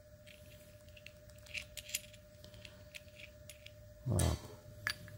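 Small machined steel parts, a threaded blanking plug and its steel block, clicking and clinking lightly as they are handled, with one brief louder sound about four seconds in, over a faint steady hum.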